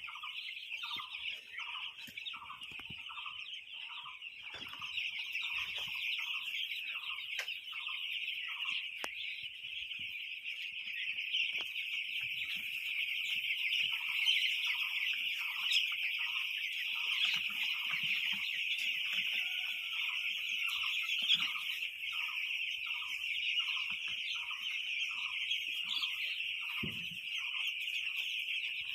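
Chickens calling: a dense, steady chorus of high peeping, with a repeated call about twice a second that comes in two long runs.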